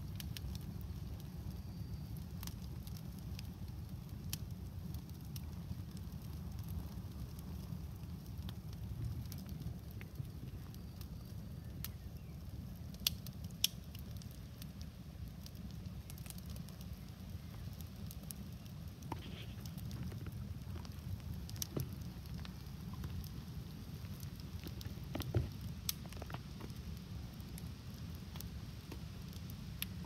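Campfire burning shoes on a shoe rack: a steady low rumble with scattered sharp crackles and pops, a few louder pops near the middle and again about three-quarters through.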